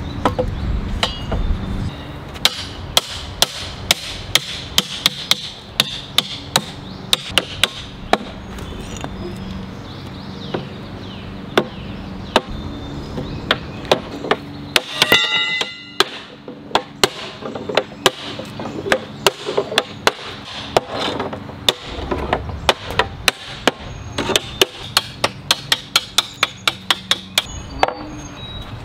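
A cooper's hammer striking a hoop driver to drive metal hoops down onto a wooden barrel: many sharp blows in quick runs, with a brief ringing about halfway through.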